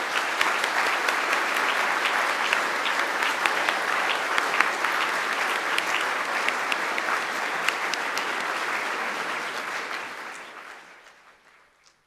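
Audience applauding, a dense steady clatter of many hands clapping that dies away over the last two seconds.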